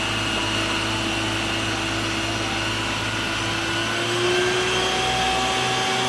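Isuzu water tanker truck's water cannon pump running: a steady mechanical whine over the hiss of the spraying jet, the pitch edging up slightly about four seconds in.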